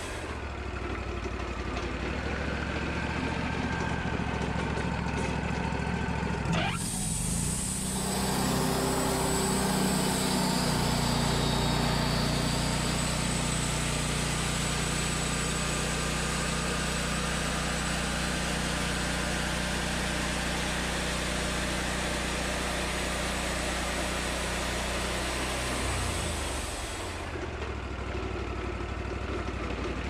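Wood-Mizer portable band sawmill running steadily on its gasoline engine. About 7 s in, the band blade enters the wood and a steady hiss of cutting joins the engine sound as it saws a 3/4-inch board off the cant. The hiss stops near the end, as the blade clears the wood.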